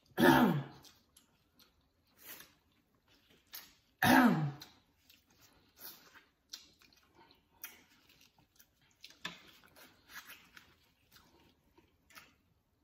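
Close-up eating sounds: chewing, mouth smacks and small crackles as corn on the cob and seafood boil are eaten. Two short vocal sounds from the throat, falling in pitch, come near the start and about four seconds in, and are the loudest things heard.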